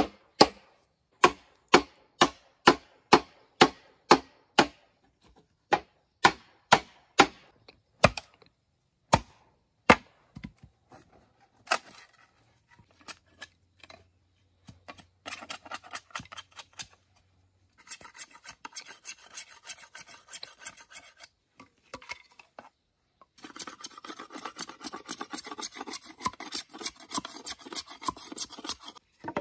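Bamboo being worked with a blade: sharp chopping strikes, about two a second, for the first ten seconds. Then rapid rasping strokes of scraping, in bursts with short pauses, running unbroken for the last six seconds.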